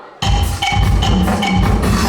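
Music starts abruptly about a quarter second in: drums and sharp woody percussion hits in a steady beat, with pitched melody notes over them.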